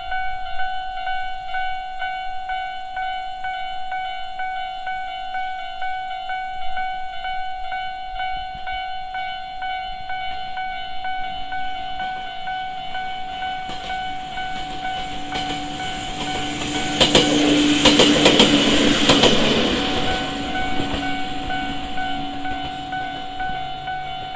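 Japanese level-crossing warning bell ringing steadily in a fast repeating clang. Partway through, a train comes up and passes with a rising rush and rapid wheel clatter over the rail joints, loudest about three-quarters of the way in and briefly drowning the bell. The train then fades while the bell keeps ringing.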